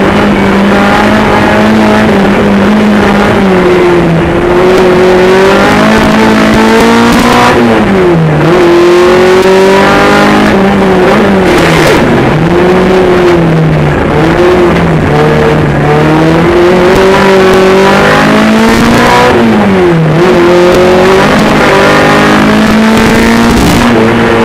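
Honda K24 2.4-litre inline-four engine of a Jeep Cherokee speed-offroad racer, run hard at high revs and loud. Its pitch sags and climbs back several times as the revs drop and build again.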